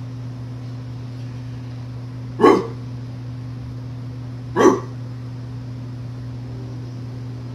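Two short single barks about two seconds apart, over a steady low hum.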